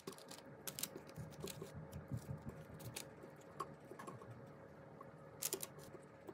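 Cherry tomato halves, Brussels sprouts and garlic cloves set down one by one on parchment paper: a scatter of light, irregular taps and soft paper crinkles, with a small cluster of taps about five seconds in.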